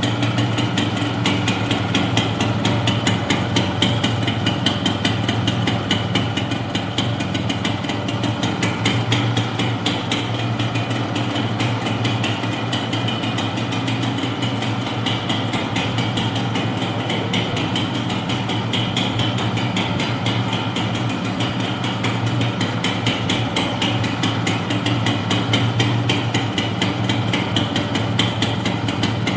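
Yamaha YB 100's single-cylinder two-stroke engine idling steadily, heard close to the exhaust silencer, with a fast, even pulsing.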